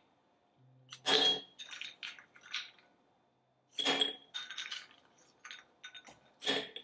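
Metal cake server clinking against a cut-glass tumbler: three main strikes about two and a half seconds apart, each with a short glassy ring, and lighter taps and scrapes between them.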